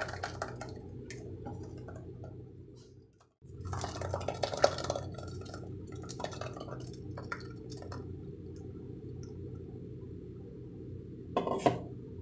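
Thick blended watermelon pulp pouring and splashing from a mixer jar into a plastic mesh strainer over a steel bowl, with clinks and knocks of the jar against the strainer and bowl. There is a sharp knock about four and a half seconds in and a short clatter near the end.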